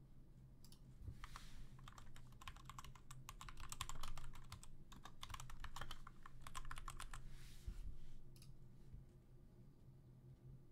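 Faint typing on a computer keyboard: a quick run of key clicks lasting several seconds, thinning to a few scattered clicks near the end.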